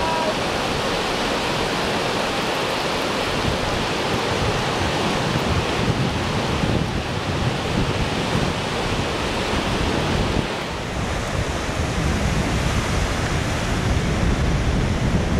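Ocean surf breaking and washing up a flat sandy beach, a steady rush, with wind rumbling on the microphone.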